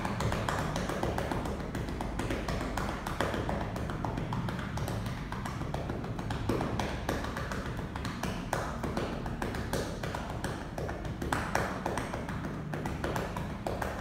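Quick, repeated cupped-hand pats on a side-lying patient's back through a blanket. This is the nursing back-patting technique (拍背) used to loosen phlegm in a bedridden person.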